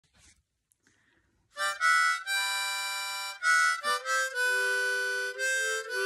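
Harmonica held in a neck rack, playing a melodic intro in several short phrases of held notes, starting about a second and a half in.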